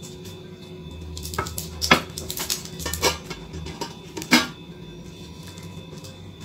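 Glass dish and stainless steel lid of a Pyrex food warmer clinking and knocking as they are handled and set down. A run of sharp clinks, the two loudest about two seconds in and near four and a half seconds.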